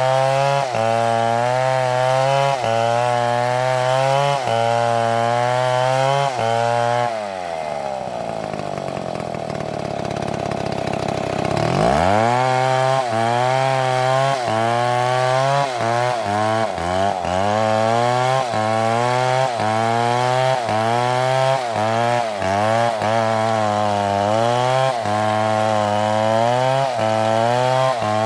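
Two-stroke chainsaw cutting wood, its engine pitch dipping and recovering in a steady rhythm under load. About seven seconds in the engine falls back to a lower, steady idle for several seconds, then revs up sharply around twelve seconds in and resumes cutting with quicker dips.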